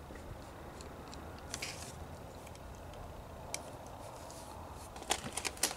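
Small metal clicks and scrapes of a screwdriver and loose parts as the position finger is unscrewed and worked free from a Singer 306 sewing machine's hook assembly. A few scattered faint ticks come first, then a quick cluster of sharper clicks near the end, over a steady low hum.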